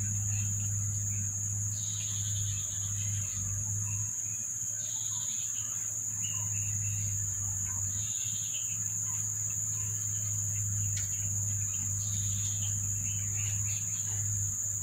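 Steady high-pitched insect drone with a short chirping call every few seconds and a low hum beneath.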